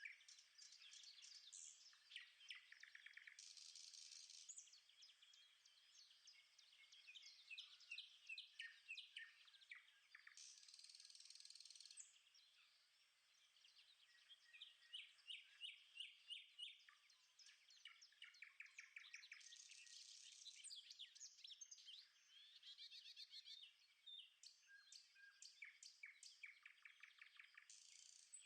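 Faint birdsong from several birds at once: overlapping chirps and quick runs of repeated notes.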